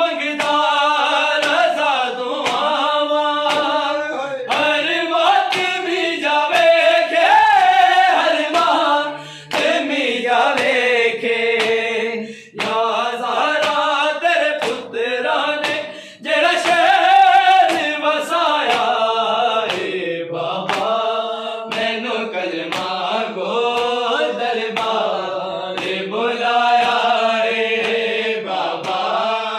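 Group of men chanting a Punjabi noha in unison without instruments, the line rising and falling with brief breaks between phrases. Short sharp beats keep time under the voices.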